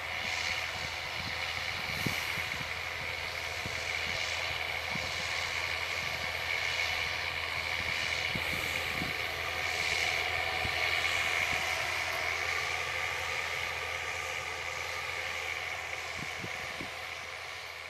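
Case IH Magnum 335 tractor's six-cylinder diesel working under load as it pulls a John Deere 1770 NT planter across the field, a steady engine and machinery noise with a constant whine. It swells a little midway and fades out near the end.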